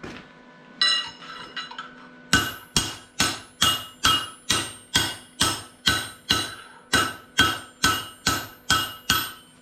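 Hammer striking 12 mm steel round bar on an anvil to bend it, each blow ringing. A few lighter taps come first, then a steady run of about seventeen blows, roughly two and a half a second.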